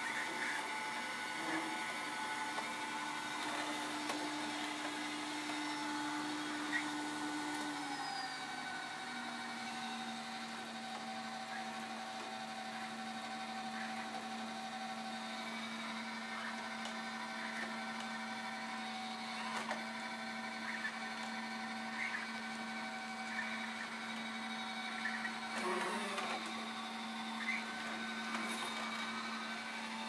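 Eufy Clean X9 Pro robot vacuum cleaner running: a steady motor hum and whine whose pitch steps down slightly about eight seconds in. A few light clicks and knocks come through it, with a small cluster a little before the end.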